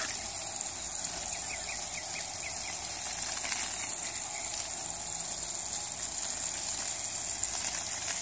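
Garden hose spraying a jet of water in a steady hiss, with a steady high-pitched drone over it.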